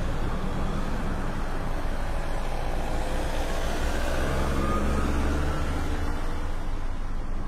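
A motor vehicle engine running steadily: an even low hum under a constant rush of noise.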